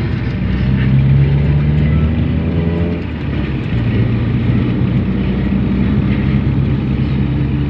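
Carbureted four-cylinder engine of a Mitsubishi Lancer pulling the car along, heard from inside the cabin; its carburetor has just been overhauled. The engine note drops briefly about three seconds in, then pulls steadily again.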